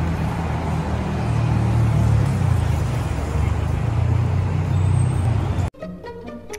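Busy city road traffic: cars and buses running past in a steady low rumble. About five and a half seconds in it cuts off suddenly and music begins.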